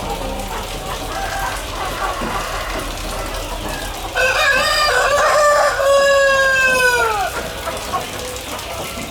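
Chickens clucking, then a rooster crows once, a call of about three seconds that drops in pitch at the end.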